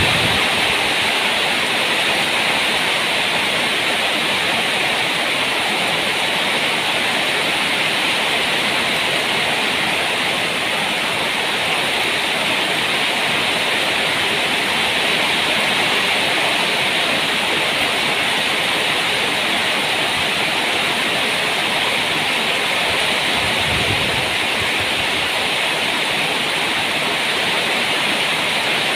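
Heavy rain pouring down steadily in a storm, an even unbroken hiss.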